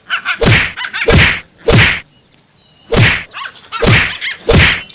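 A dog barking repeatedly at close range, irregular loud barks about half a second to a second apart, with a pause in the middle, so loud that the phone microphone distorts them.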